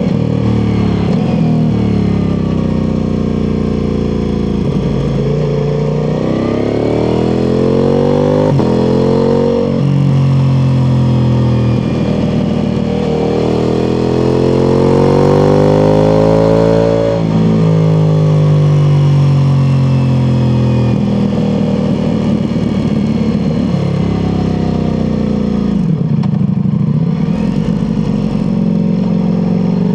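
Ducati Multistrada V4 Pikes Peak's V4 engine through an Akrapovič exhaust, pulling hard and easing off as the bike is ridden. The pitch climbs and falls repeatedly, with a sudden drop at a gear change about halfway through.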